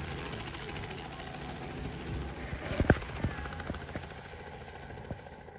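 Steady drone of aircraft engines overhead, with a few sharp clicks, the loudest about three seconds in.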